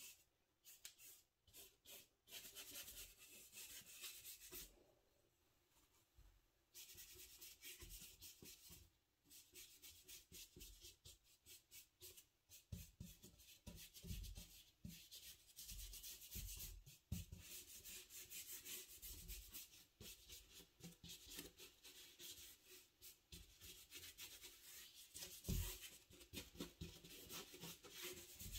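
Faint, rapid strokes of a paintbrush scrubbing paint across a heavy, textured paper surface, pausing briefly a few seconds in, with a few soft low bumps of the brush against the board.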